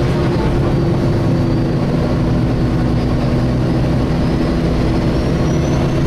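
MAN single-decker bus heard from inside the saloon on the move: a steady diesel engine drone under the whooshing rush of the engine's cooling fan running, the sound bus enthusiasts call "hoovering". A faint high whine slowly rises in pitch through the second half.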